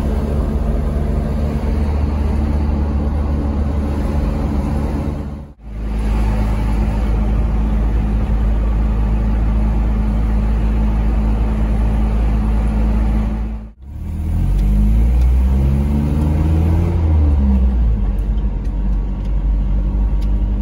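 Car engine and road noise heard from inside the cabin while driving, a steady low hum. About two-thirds of the way through, the engine's pitch rises and then falls as the car accelerates. The sound cuts out briefly twice.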